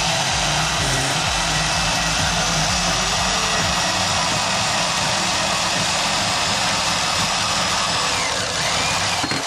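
Portable band saw running and cutting through a metal bar, a steady, loud saw noise without a break.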